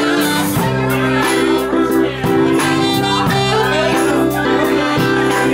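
Live band playing a slow rock ballad: electric guitar, bass, keyboards and a drum kit keeping a steady beat, with a saxophone and some singing.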